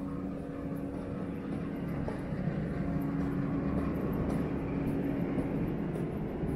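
Low mechanical rumble with a steady hum from a vehicle out of sight, growing louder over the first few seconds and then holding, with faint footsteps on pavement.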